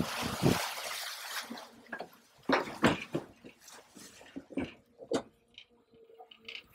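Canal water rushing and splashing off a hydraulic crane grab as it comes up out of the water, then the arm plunging back in, with several sharp splashes and knocks.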